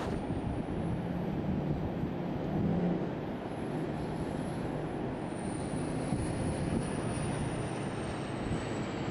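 Steady low rumble of wind and distant ocean surf.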